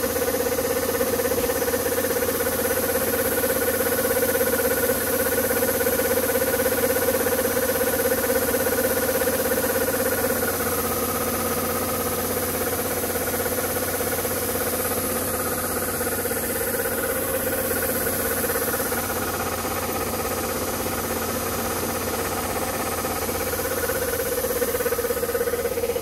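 Kubota ER 470 combine harvester running steadily while it unloads threshed rice through its auger into a grain bag, with a steady high whine over the engine.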